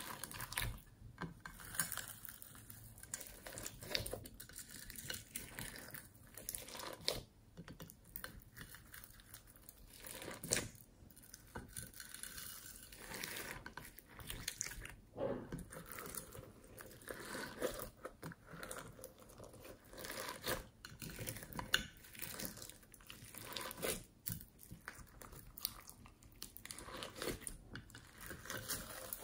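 Hands kneading and stretching a large mass of slime loaded with beads, foam balls and sprinkles: irregular crackling and squishing as the slime is folded and pulled.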